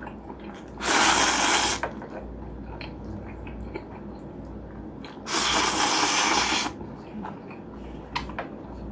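A person slurping chewy acorn jjolmyeon noodles in two long, loud slurps, about a second in and again past the middle, with soft chewing and mouth clicks between.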